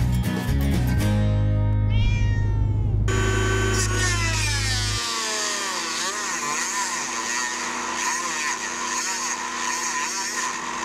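The intro music ends, then a Dremel rotary tool with a metal cutting wheel cuts through a threaded steel bolt: a loud, steady, high-pitched whine whose pitch dips and wavers as the wheel bites into the bolt.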